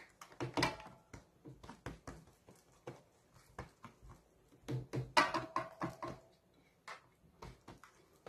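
Hands patting and stretching msemen dough thin on an aluminium tray: irregular soft slaps and taps, with a louder clatter about five seconds in.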